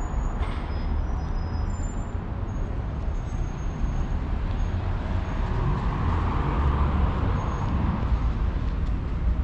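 Steady city road traffic with a low rumble. About six seconds in, a passing vehicle grows louder and then fades.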